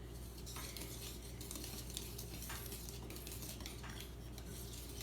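A utensil stirring cake mix and water in a mixing bowl, scraping and clinking against the bowl again and again, over a steady low hum.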